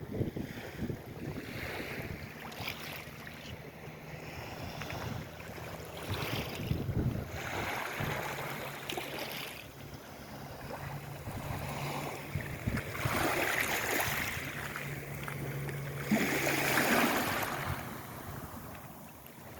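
Salt-water waves washing in and drawing back on the shore, swelling several times, with a steady low engine drone from a passing boat underneath for most of the time.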